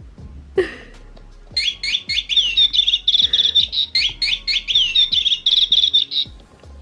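Electronic bird-call chirping from a battery-powered bird cat toy: a rapid run of repeated chirps that starts about one and a half seconds in and stops shortly before the end. A brief sharp sound comes just over half a second in.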